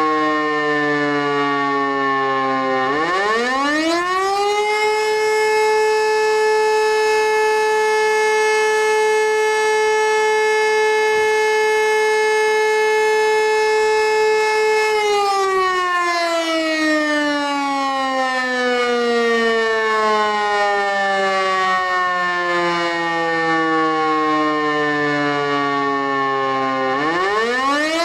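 Civil defense siren sounding the fire brigade alarm. It rises quickly to a steady howl about three seconds in and holds it for about twelve seconds. It then winds down slowly over about twelve seconds and rises again near the end.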